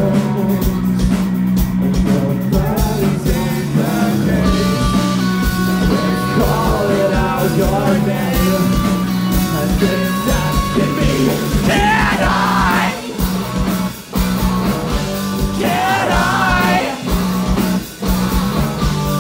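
Rock band playing live on electric guitars, bass and drums, with a lead voice singing over the top. The sound drops briefly twice near the end.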